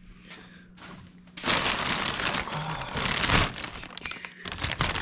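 Packaging being pulled and crumpled open around a shipped engine block: a dense, crackly crinkling that starts about a second and a half in, pauses near the end, then starts again.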